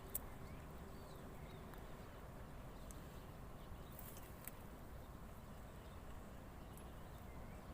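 Quiet outdoor background: a low steady rumble with a few scattered sharp clicks and faint short chirps.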